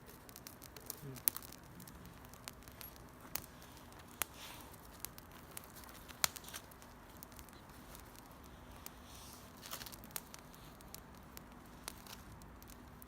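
Wood campfire crackling, with irregular sharp pops from the burning sticks.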